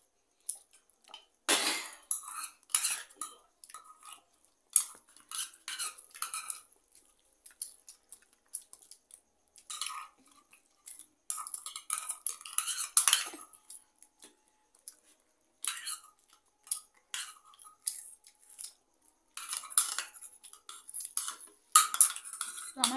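Metal spoons scraping and clinking against bowls in quick, irregular bursts as two people hurriedly scoop up chow mein noodles.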